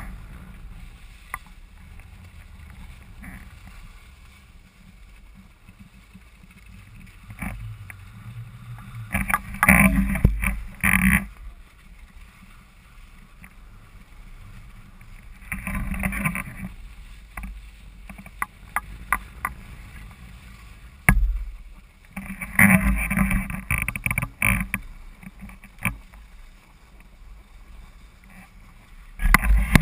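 Skis sliding over groomed, packed snow in a steady low hiss, with several louder scraping stretches as the skis carve turns, and a sharp click a little past two-thirds of the way in.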